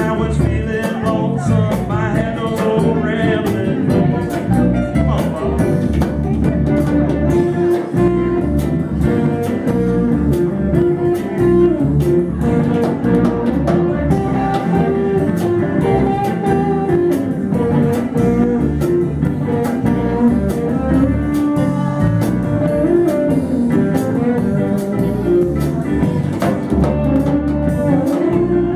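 Live blues band playing, led by guitar, with a steady beat and a singing voice at times.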